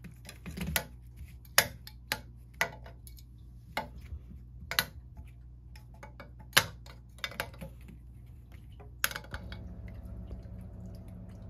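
Irregular sharp clicks and knocks of a small plastic ball being batted by a kitten against wooden table legs and the floor. About nine seconds in the clicks stop and a pet water fountain's pump hum sets in, steady and low, with faint trickling.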